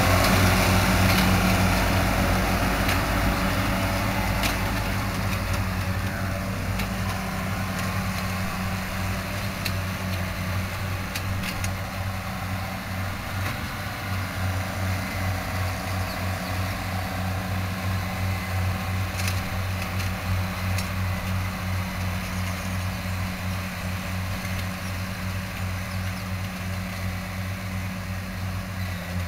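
Case IH MX135 tractor's diesel engine running steadily while pulling a Claas Variant round baler through hay windrows. It is loudest at the start and fades over the first several seconds as the outfit moves away.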